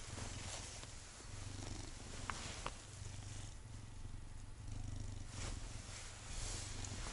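Domestic cat purring close up while being stroked, the low purr swelling and easing with each breath, about every second and a half. A couple of faint short clicks come about two and a half seconds in.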